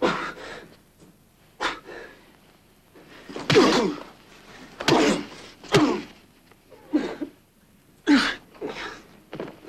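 A man being beaten, gasping and groaning in pain with sudden thuds of blows: about seven sharp bursts, roughly a second apart.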